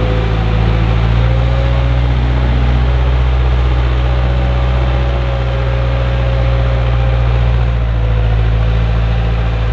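Heavy diesel farm machinery running steadily under load, a deep engine drone with a thin whine above it that wavers slightly.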